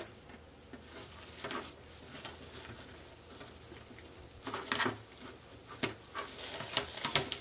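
Poly deco mesh rustling and crinkling in short, irregular bursts as it is bunched by hand and pipe cleaners are twisted around it, with the busiest handling near the end.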